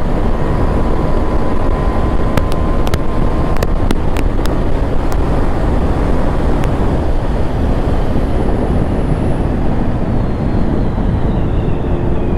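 KTM Duke 390 motorcycle riding at speed: a steady, loud rush of wind and engine noise on the rider's microphone. A few sharp clicks come between about two and five seconds in.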